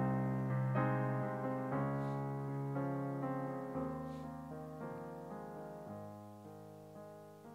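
Soft piano or electric-piano chords played slowly, sustained notes changing every second or so, gradually fading in volume.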